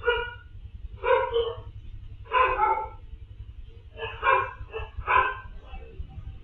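A dog barking in short single barks, about one a second, over a steady low hum.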